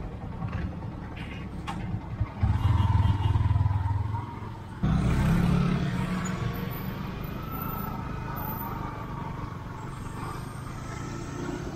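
Motorcycle riding in traffic: engine and road noise with a low wind rumble on the microphone. The rumble swells suddenly about five seconds in, then slowly eases.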